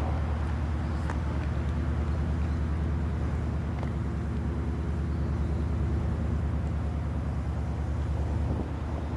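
The Japan Coast Guard patrol vessel Kunigami's engines give a low, steady drone with a fast, even throb as the ship runs past.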